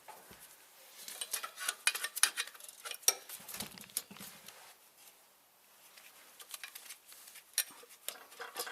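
Bursts of metallic clinking and scraping as a clutch pressure plate and clutch disc are worked loose and pulled off the engine's flywheel, with quieter pauses between the bursts.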